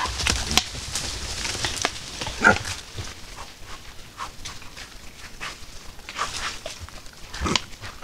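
White-lipped peccaries calling: a few short grunting calls, the loudest about two and a half seconds in and again near the end, over scattered clicks and rustling as the herd moves through leaf litter.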